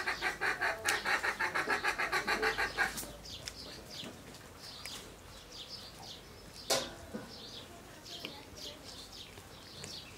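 An animal's rapid pulsing call, several pulses a second, that stops abruptly about three seconds in. After it come faint bird chirps and a single sharp click near the seven-second mark.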